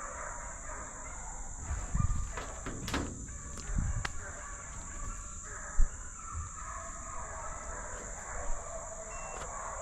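Pack of deer-hunting hounds baying and bawling in the distance while running a deer. There are a few low thumps, the sharpest one about six seconds in.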